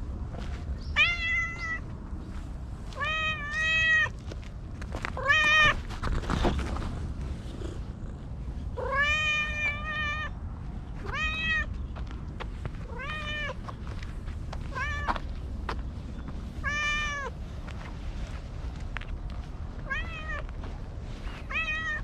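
A domestic cat meowing over and over, about a dozen short calls a second or two apart, each rising and then falling in pitch, over a steady low background rumble.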